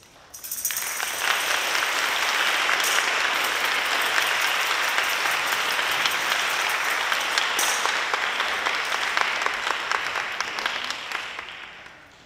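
Audience applauding: the clapping swells up within the first second, holds steady, then dies away near the end.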